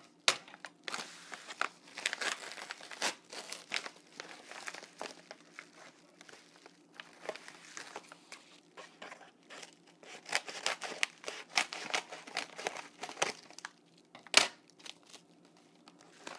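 Kraft-paper bubble mailer being torn open and handled: irregular crinkling, rustling and tearing of the paper, with two sharp louder cracks, one just after the start and one near the end.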